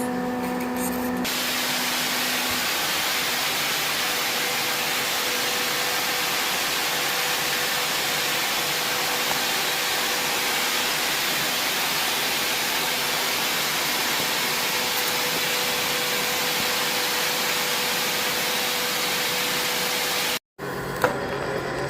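Welding in progress: a steady, even hiss with a faint hum under it, starting about a second in and cutting off abruptly near the end.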